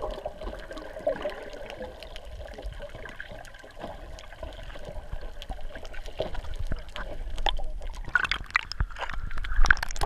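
Underwater water noise picked up by an underwater camera, with many sharp crackling clicks and bubbles. It grows louder with splashing near the end as the camera breaks the surface.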